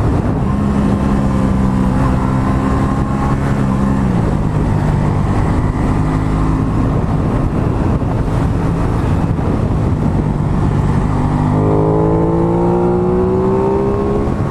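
Aprilia Tuono 660's parallel-twin engine running through an aftermarket exhaust, heard on board over heavy wind rush on the microphone. The engine holds steady revs, its pitch drops about four seconds in, and near the end it climbs steadily as the bike accelerates.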